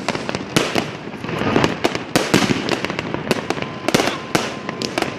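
Fireworks and firecrackers going off all around, many sharp bangs in quick irregular succession over continuous crackling.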